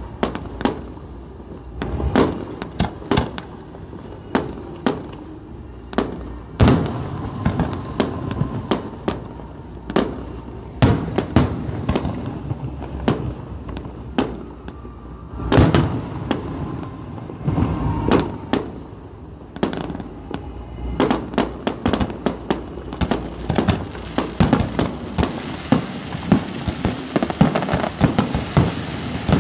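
Fireworks display: aerial shells bursting in sharp bangs, one after another at irregular intervals, coming thick and fast in the last several seconds.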